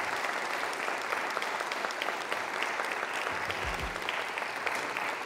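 Applause: a dense, steady patter of hand clapping that cuts off abruptly at the end.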